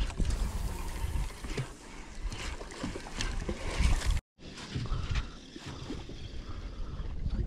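Wind buffeting the microphone and water sloshing around a small open fishing boat at sea, with scattered knocks and splashes. The sound cuts out for an instant about four seconds in.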